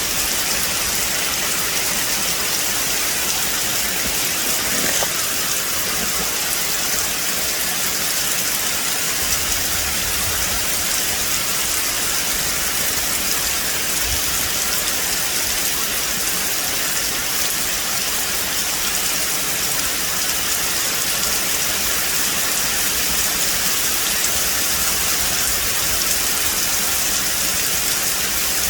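Steady rain falling on a forest, an even hiss of drops on leaves and ground.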